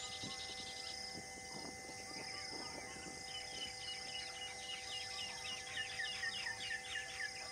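Birds calling in scrubland, with a quick run of short, repeated falling chirps in the second half, over a steady drone of insects.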